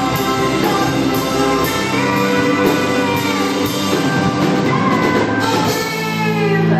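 Live band music from electric guitar and drum kit, dense and sustained with some gliding pitches. A deep, steady low note comes in near the end.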